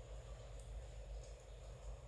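A few faint clicks of metal knitting needles over a steady hiss of rain coming in through an open window.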